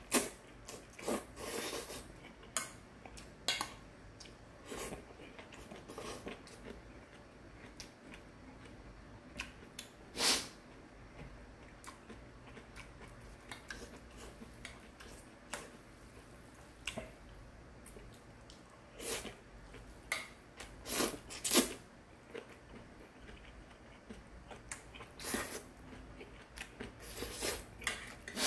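A person eating bibim-guksu noodles, slurping and chewing in a string of short noisy sounds, with a metal utensil clinking and scraping in a stainless steel bowl.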